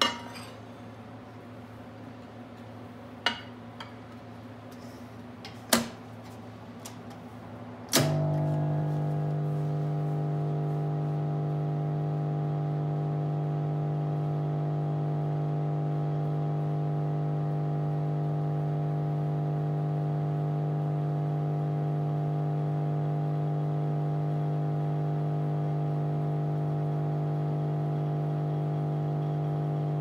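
1968 Husqvarna Electronic 2000 'Cupol' microwave oven. First a clink and a few sharp knocks and clicks as a glass is set inside and the dome is closed. About eight seconds in, a sharp click as the oven switches on, and then the steady mains hum of its high-voltage transformer and magnetron.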